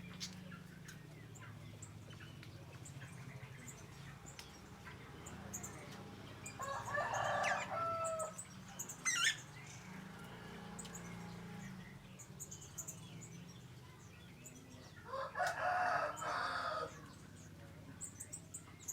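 A bird in an aviary giving two long, loud calls about eight seconds apart, each lasting nearly two seconds, over faint high chirping from small birds.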